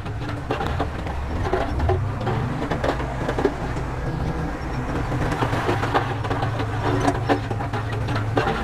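Heavy diesel earthmoving machinery running steadily, with frequent knocks and clatter of rock and metal over the engine.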